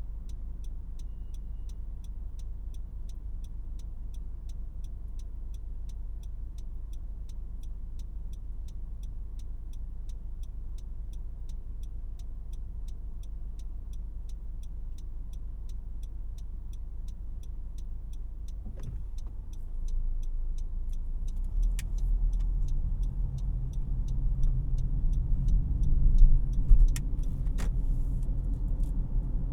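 Cabin of a 2018 Honda CR-V LX with its 2.4-litre four-cylinder running at a low, steady hum, and a regular clicking of about three ticks a second, typical of the turn-signal indicator. About 20 seconds in, the engine and road rumble get louder as the car gets moving, with a few sharp knocks near the end.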